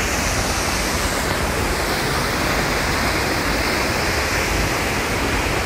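Steady rush of a waterfall and the stream pouring over the rocks below it.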